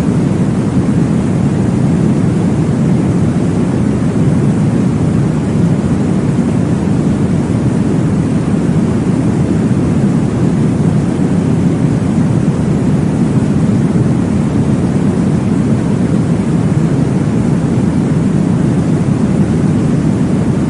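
Steady, deep whooshing white noise for soothing a baby to sleep, weighted toward the low end. It has an even level and no pulses or changes.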